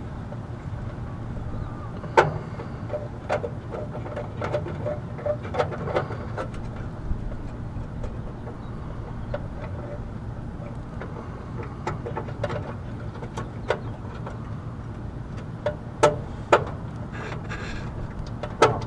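Scattered clicks and taps of hands working wires and terminals inside an air-conditioner condenser's electrical panel, over a steady low background rumble.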